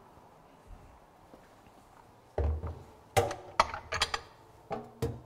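Kitchenware being handled on a counter: quiet at first, then from about two and a half seconds in a run of about half a dozen knocks and clanks of pans and a baking mould, some of them ringing briefly.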